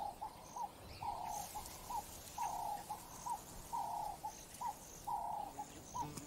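A dove cooing a short phrase of a few low notes over and over, about once every second and a half, with faint high chirps from another bird.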